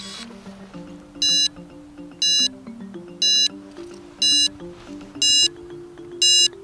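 Blade 200 QX quadcopter's crash-recovery alarm beeping regularly, short high beeps about once a second. The beeps signal that it has gone in hard and is locked out: the motors won't restart until the battery is disconnected and reconnected.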